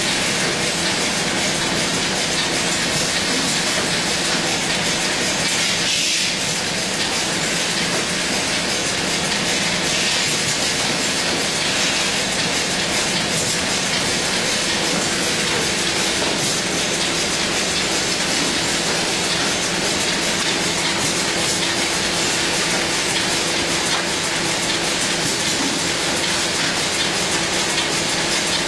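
Automatic continuous-motion cartoning machine with a bottle turntable running steadily: a dense, even mechanical clatter of many fine ticks over a steady hum.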